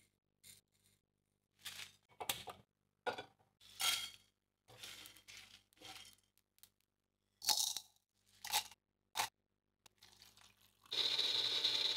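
A series of short, separate kitchen sounds: dry cumin seeds and black peppercorns pattering onto a plate, then whole spices being stirred and toasted in a dry pan with a wooden spatula. Near the end comes a louder steady rush of about a second as water is poured into a blender jar.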